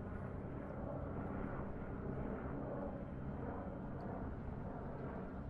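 Steady low rumble with a faint hum underneath, background noise that holds even throughout.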